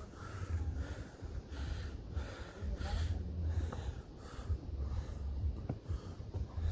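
A person panting hard while climbing a steep mountain trail, quick rhythmic breaths about two a second: breathlessness from exertion at high altitude.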